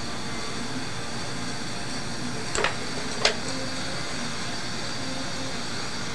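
Steady background hiss, broken by two sharp clicks less than a second apart near the middle.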